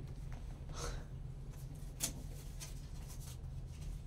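Gloved hands handling a sealed Panini Immaculate Baseball cardboard box: a few light rustles and a sharp click about two seconds in, over a steady low hum.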